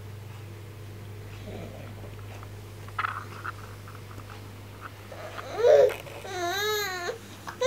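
Young child babbling: a short squeal about five and a half seconds in, then a longer wavering vocal sound that rises and falls in pitch, over a steady low hum.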